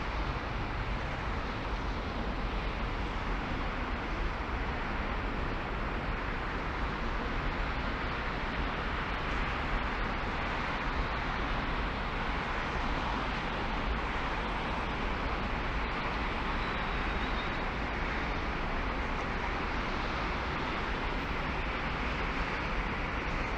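Steady road noise from a car driving, an even rush with a low rumble underneath.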